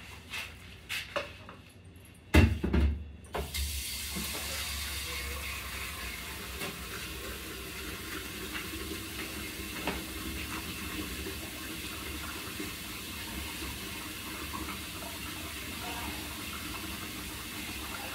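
A few knocks and a thump, then a tap turned on about three and a half seconds in and running steadily into a sink as dishes are cleaned up.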